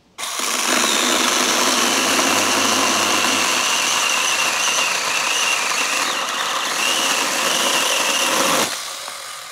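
Battery-powered 21-volt mini chainsaw cutting through a small log: a loud, steady high-pitched motor whine with chain noise, dipping slightly as it struggles a little in the cut. Near the end the trigger is released and the saw winds down.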